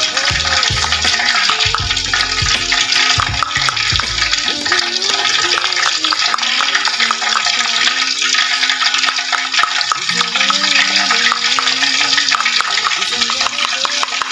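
Hot cooking oil sizzling steadily in an aluminium wok while a fork whisks beaten egg in a plastic container, with a few low thuds in the first few seconds.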